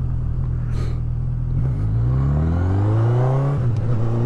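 Honda CB1000R's inline-four engine accelerating through the gears. Its pitch holds steady, drops at a gear change about a second and a half in, climbs steadily and drops again at the next gear change about three and a half seconds in.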